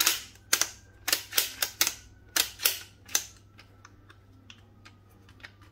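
Christensen Arms Ranger .22 LR bolt action worked by hand: a quick run of sharp metallic clicks and clacks over about three seconds, then a few faint ticks, as the freshly reassembled bolt is cycled to check that it works.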